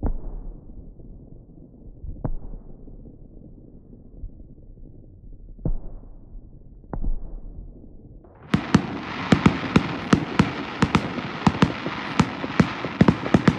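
Fireworks: a few separate booms from distant aerial shells, each trailing off in a rumble. About two-thirds of the way through, a much louder, dense crackling with many sharp pops starts suddenly and keeps going.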